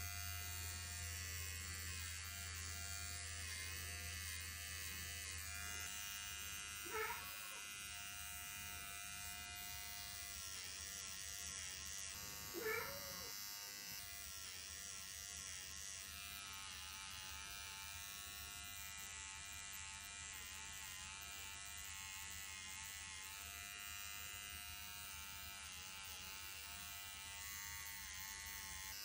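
Cordless electric pet hair clipper buzzing steadily as it trims the overgrown fur tufts between a cat's paw pads. Two short rising-and-falling voice-like calls break in, about seven and thirteen seconds in.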